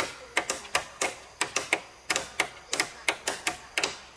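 Several hammers knocking in an uneven, overlapping rhythm, about four sharp strikes a second, as more than one person works on the house at once.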